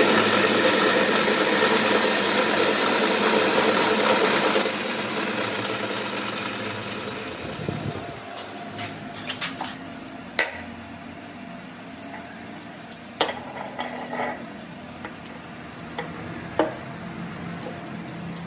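Metal lathe cutting a thread on a steel bar, a dense steady cutting noise that drops away about five seconds in and fades out. Then scattered light clinks and knocks of steel parts (nuts, a round bar, a drilled plate) being handled and set down on a wooden board.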